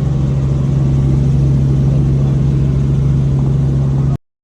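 Helicopter in flight heard from inside the cabin: a loud, steady low drone of engine and rotor that cuts off suddenly near the end.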